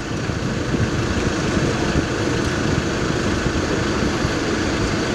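Steady rumble of road traffic on a busy highway, with no single event standing out.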